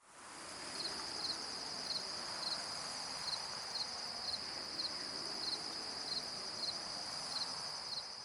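Crickets chirping: a steady high trill, with a second cricket giving a doubled chirp about twice a second, over a soft hiss. It fades in at the start.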